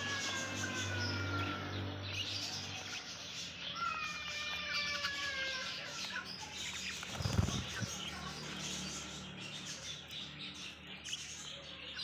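A flock of budgerigars chattering and warbling, with rising and falling chirps overlapping throughout. A low thump comes about seven seconds in.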